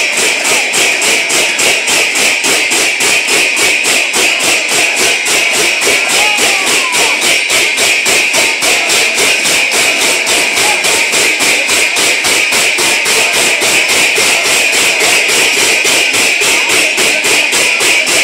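A group of large brass hand cymbals clashed together in unison, in a fast, even rhythm of roughly four to five clashes a second, with a bright metallic ring that carries between strokes.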